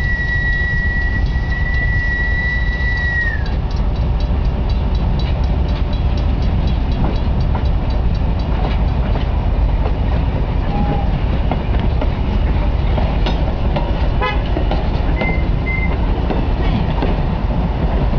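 Strasburg Rail Road train passing close by with a heavy steady rumble. A long whistle blast ends with a drop in pitch about three seconds in. Then come regular clicks of the wheels over the rail joints, and two short whistle toots late on.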